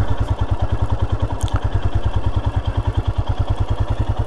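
Royal Enfield Himalayan single-cylinder motorcycle engine running slowly and steadily, its exhaust beating in even low pulses about a dozen times a second.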